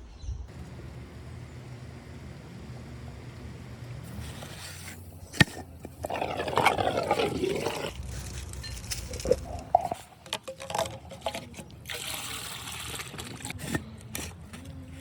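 Water gurgling and sloshing as a pool is vacuumed of settled dirt, with a sharp knock about five seconds in and a louder gurgling stretch soon after.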